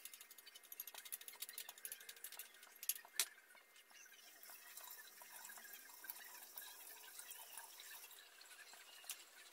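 Tortang kalabasa, a squash-and-egg fritter, frying in shallow oil in a wok: faint, steady sizzling with rapid little crackles and two sharper pops about three seconds in.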